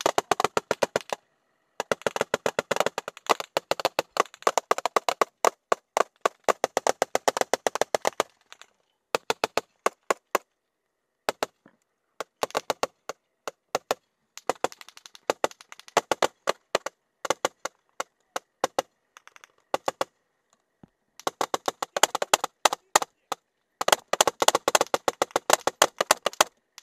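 Close rapid rifle fire: long strings of quick shots with short pauses between them, the strings getting shorter and more broken in the middle and running long again near the end.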